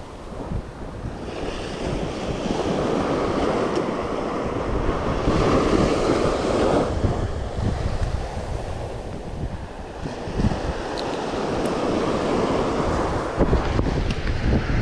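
Small surf breaking and washing up a sandy beach, swelling and easing, with wind buffeting the microphone.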